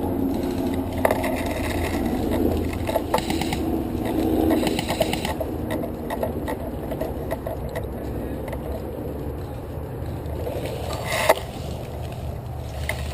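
Rustling and crunching movement noise with a steady low rumble, broken by many small irregular crackles and one sharp click about eleven seconds in.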